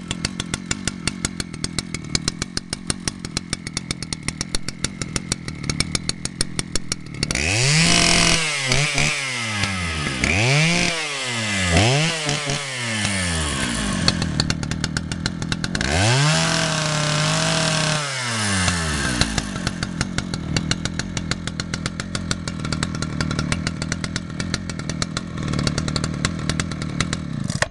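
Vintage Husqvarna 285 CD two-stroke chainsaw idling with a regular firing beat. About seven seconds in it is revved up and down three times in quick succession, then held at high revs for a few seconds before dropping back to a steady idle.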